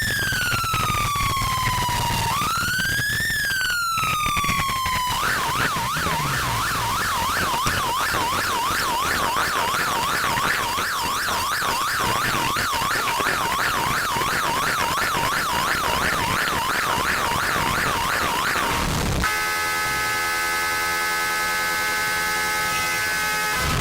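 Emergency-vehicle siren, the kind used by a police escort: first a slow rising and falling wail, then about five seconds in it switches to a fast yelp. For the last few seconds it gives way to a steady, chord-like blare.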